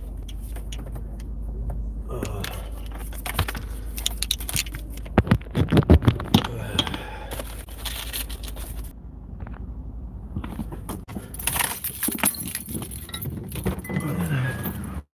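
Rustling and clinking handling noise, a jumble of short clicks and rattles from a phone being moved about in the hand, busiest about five to six seconds in.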